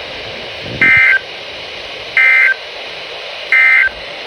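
NOAA Weather Radio SAME end-of-message signal: three short, identical bursts of warbling two-tone data, about a second and a half apart, marking the end of the weekly test broadcast. A steady radio hiss runs under them.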